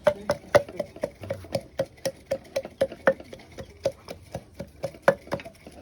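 Knife chopping vegetables on a cutting board, in steady even strokes about four a second.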